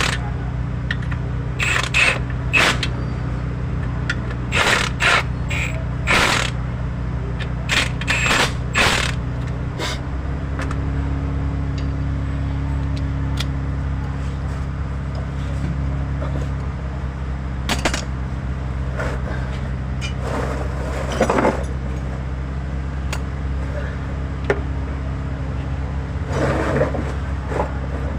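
A motor running steadily with a low hum that changes pitch about ten seconds in, while sharp metallic knocks and clanks come several times in the first ten seconds and a few more later.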